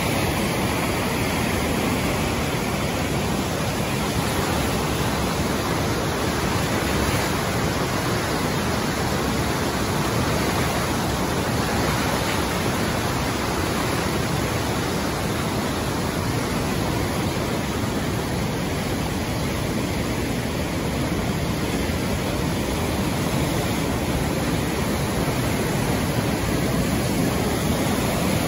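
Muddy mountain creek in flood, rushing past in heavy whitewater: a loud, steady rush of water.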